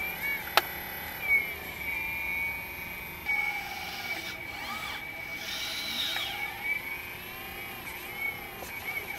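Hydraulic pump and motor of a 1/14-scale full-metal, full-hydraulic RC CAT 330F excavator whining under load as it swings and digs, the pitch rising and falling with the work. A sharp click about half a second in.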